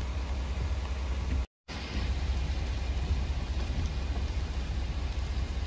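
Freezing rain falling steadily, a hiss of fine drops and ticks with a low rumble underneath. The sound cuts out briefly about a second and a half in, then resumes.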